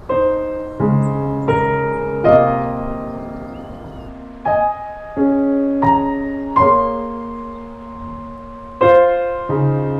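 Slow piano music: chords struck every second or so, each ringing and fading before the next.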